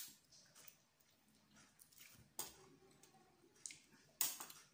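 Eating at close range: quiet chewing with a few sharp clicks of a spoon and fork against a plate, and a brief scrape of the cutlery on the plate near the end.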